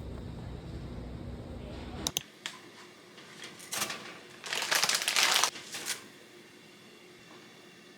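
Background music cuts off about two seconds in, followed by a few sharp clicks and a loud crinkling rustle of something being handled, like paper or a plastic wrapper.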